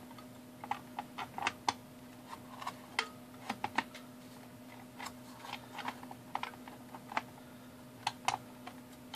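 Irregular light clicks and taps of the plastic case parts of a digital clock being handled and fitted together, over a faint steady hum.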